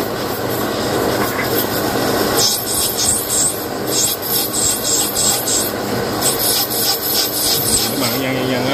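Rasping, scraping strokes on metal in quick irregular runs, starting about two and a half seconds in, over a steady low machine hum.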